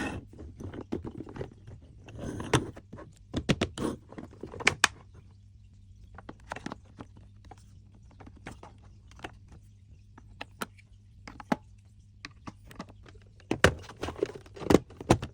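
Small plastic toy pieces and their packaging being handled: scattered clicks, taps and short rustles, with a low steady hum underneath.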